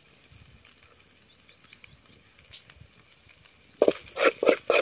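Metal spatula scraping and stirring in an aluminium pot of frying river snails: a quick run of scrapes, about four a second, starts near the end after a mostly quiet stretch.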